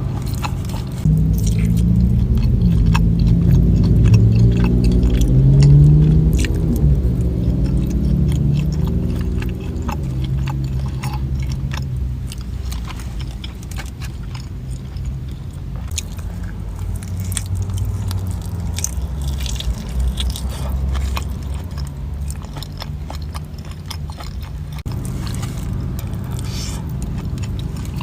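Chewing and biting close to the microphone, with frequent wet smacks and clicks over a low steady drone.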